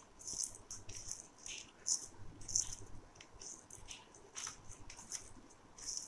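Dried red chillies crackling as they are crushed between the fingertips on a paper plate: a faint run of short, irregular, crisp crackles.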